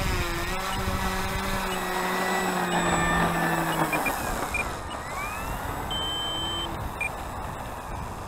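Electric motor and propeller of an E-flite Carbon-Z Cub model plane taxiing close by: a steady buzzing hum that drops away about four seconds in as the plane passes, then rises in pitch again around five seconds as it taxis off.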